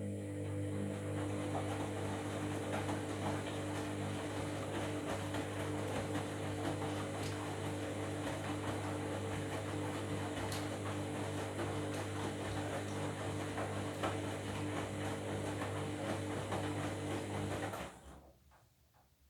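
Washing machine humming steadily with a rushing, water-like noise over it, then cutting off abruptly near the end.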